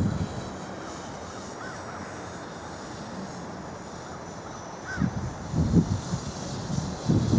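GAUI 330X-S quadcopter flying high overhead: a faint steady high whine from its electric motors and propellers. Low rumbles of wind buffeting the microphone come in about five seconds in and again near the end.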